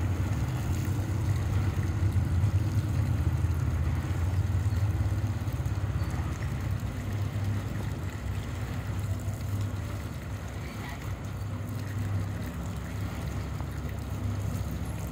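A motor or engine running steadily with a low drone.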